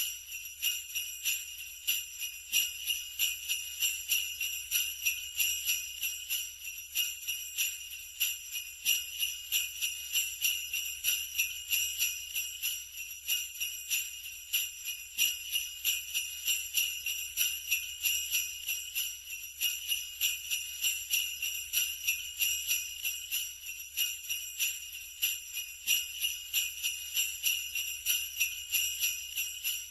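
Sleigh bells shaken in a steady, continuous rhythm, jingling.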